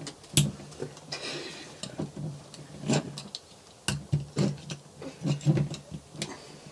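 A metal fork prying at a beer bottle's crown cap: irregular sharp clicks and knocks of metal on the cap and glass, the strongest about half a second in and again about four seconds in.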